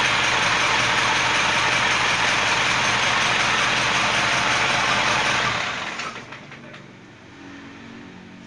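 Isuzu 4HF1 four-cylinder diesel engine idling steadily with diesel clatter, running on a newly fitted manual injection pump. The sound drops away sharply about five and a half seconds in.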